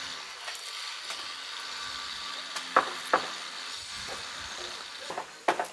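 Two sharp knocks about a third of a second apart, roughly three seconds in, with a few lighter clicks near the end, over a steady high hiss: work knocks from repairs on a damaged roof.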